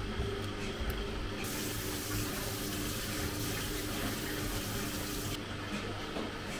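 Water running from a tap into a sink for about four seconds, starting about a second and a half in and shutting off near the end, over a steady low hum.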